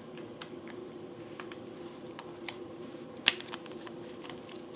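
Small clicks and taps of hands handling a microphone mount adapter on a stand's bar, with one sharper click about three seconds in, over a faint steady hum.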